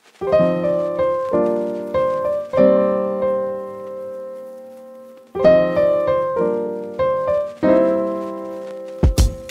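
Background music: a piano plays chords that are struck and left to ring away. The phrase fades almost out about halfway through, then starts again. A drum-led track cuts in at the very end.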